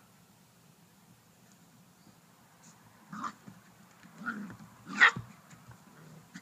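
Puppies giving three short barks while playing, about three, four and five seconds in, the last the loudest.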